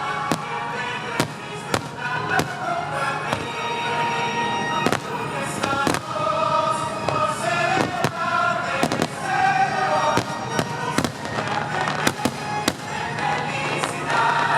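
Fireworks going off in a string of sharp, irregular bangs over loud concert music.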